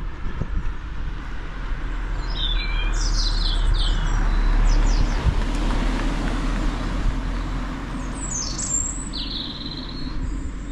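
Songbirds chirping in two short bursts of quick, falling calls, one a few seconds in and one near the end, over a steady low rushing noise that swells and fades around the middle.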